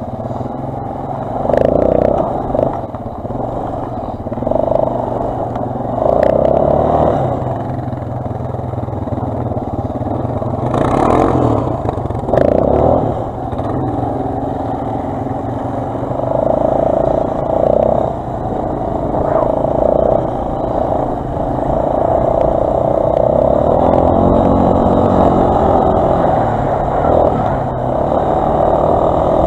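Quad bike (ATV) engine running while riding over snow, rising and falling with the throttle in repeated surges.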